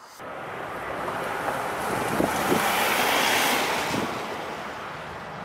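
Four jet engines of a Boeing 747-400 freighter, heard as a broad rushing roar that swells to a peak about three seconds in and then eases, with wind rumbling on the microphone.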